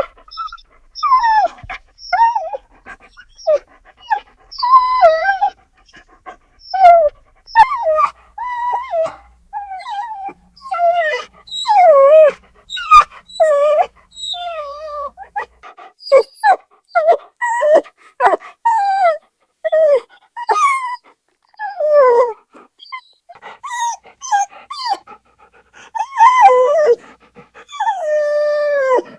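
A dog whining: a long string of short, high, pitched cries that bend and slide in pitch, some rising and falling, with short pauses between them.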